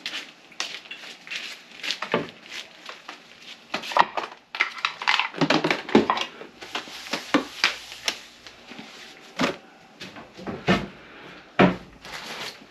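Irregular knocks, clicks and rustling of things being handled and set down around a kitchen sink cabinet.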